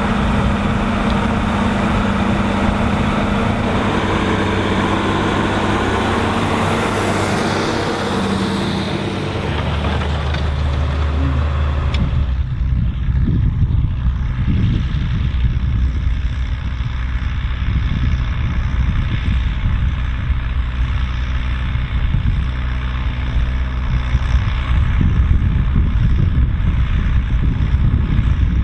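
Volvo BM 2654 tractor's diesel engine running steadily under load while ploughing. About twelve seconds in the sound changes suddenly: the high hiss drops away and the engine's low drone comes through stronger.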